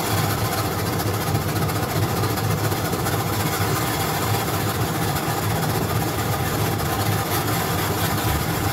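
Electric snow-cone ice shaver running steadily, its motor humming while the blade shaves a block of ice down into snow.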